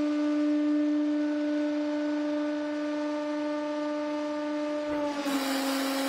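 Hydraulic press motor and pump running with a steady hum, one tone with overtones, as the ram presses down into soft modelling clay. A little after five seconds the hum dips slightly in pitch and a loud hiss joins it for about a second.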